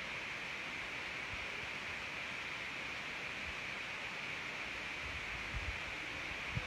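Steady hiss of room tone picked up by a phone's microphone, with a few soft low bumps near the end as the phone is handled.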